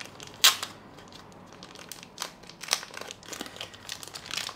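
Clear plastic bag crinkling as hands pull it open and off a small camera: irregular crackles, the sharpest about half a second in.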